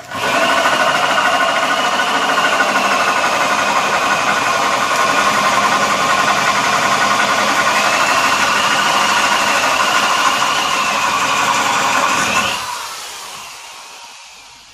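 Corded electric drill turning an adjustable circle cutter through a wooden board, running steadily at full speed with a wavering whine. About twelve seconds in the drill is let off and the motor winds down.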